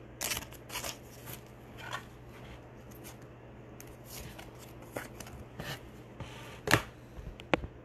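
Baseball trading cards being handled and flipped through by hand: short rustles and slides of card stock, with a few sharper clicks near the end.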